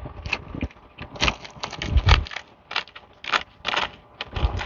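Fingers rubbing across a very dry sunflower head, with irregular crackles and rustles as the seeds loosen and fall out.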